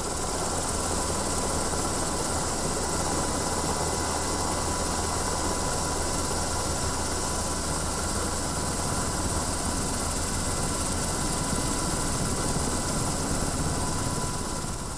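UH-60 Black Hawk helicopter in flight, heard from aboard: a steady rushing drone with a faint steady whine on top, starting to fade near the end.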